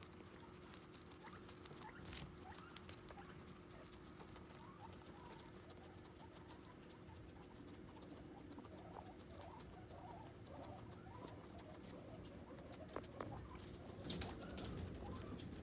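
Guinea pigs eating: faint chewing and rustling through hay and kale, with a few sharp clicks about two seconds in and louder rustling near the end.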